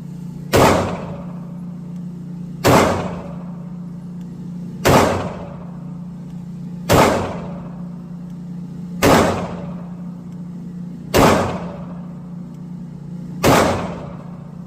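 A 9mm pistol fired in slow, deliberate single shots, seven in all, about two seconds apart, each crack followed by a short ringing decay. A steady low hum runs underneath.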